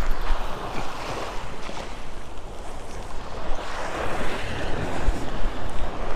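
Surf washing up the beach, with wind buffeting the microphone; the rush of the waves swells loudest about four seconds in.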